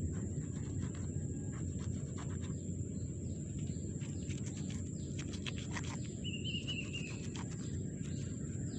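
Knife cutting through a snakehead fish on the ground, heard as scattered short clicks and crunches over a steady low outdoor rumble. A bird gives a short high warbling call about six seconds in.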